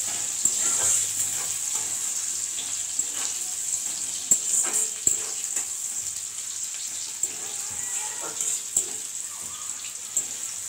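Chopped onion and whole spices sizzling steadily in hot oil in a metal kadai, with a spatula scraping and knocking against the pan now and then as it is stirred.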